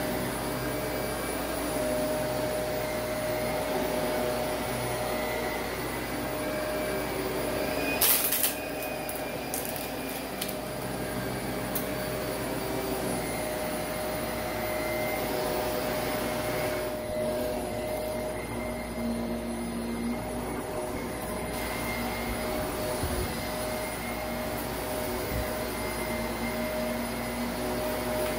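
Shark Navigator upright vacuum running steadily as it is pushed over a shag rug, with one loud sharp crunch about eight seconds in and a few fainter clicks soon after as debris is sucked up.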